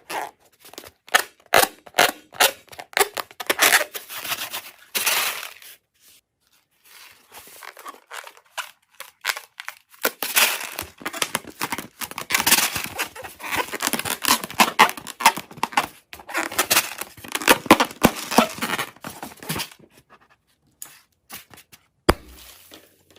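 Slime and balloons handled by hand: bursts of crackly, rustling handling noise, with a quiet gap about six to ten seconds in.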